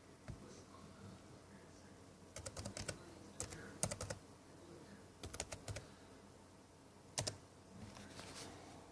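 Faint typing on a computer keyboard: short runs of quick key clicks separated by pauses, with one sharper click about seven seconds in.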